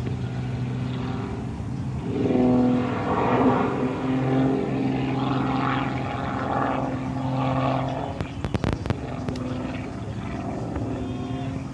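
Aerobatic propeller plane's engine droning overhead during a smoke-trailing dive. It gets louder and fuller about two seconds in, then eases off. A few sharp knocks come near the end.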